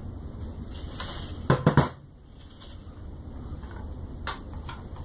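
Metal diagonal cutters set down on a worktable: a quick clatter of three or four knocks about one and a half seconds in, then a single click about four seconds in, over a steady low hum.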